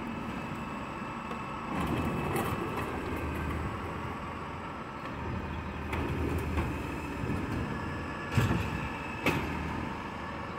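Heil Rapid-Rail automated side-loader garbage truck working its hydraulic arm: the diesel engine runs and picks up about two seconds in as the arm lifts a recycling bin and tips it into the hopper. Two loud bangs come near the end as the emptied bin comes back down.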